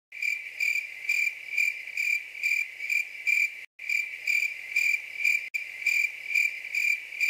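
Crickets chirping: a steady high trill pulsing about twice a second. It cuts in abruptly out of silence and breaks off briefly twice, as an edited-in sound-effect track would.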